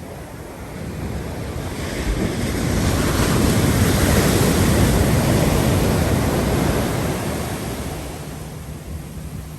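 Big Pacific surf waves breaking on the beach: the rush of surf swells over a couple of seconds, holds loud, then washes away near the end.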